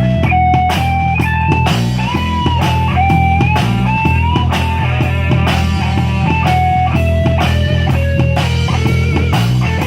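Live band music: a lead melody of held notes that slide and bend, over a steady bass line and drums.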